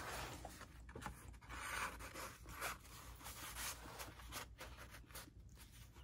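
Paper and cardstock rustling and scraping in short, irregular strokes as a journaling card is slid in its pocket and the journal's fold-out pages are handled and pressed flat.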